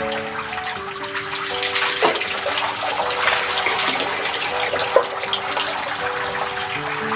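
Spring water running and splashing steadily, under background music with long held notes.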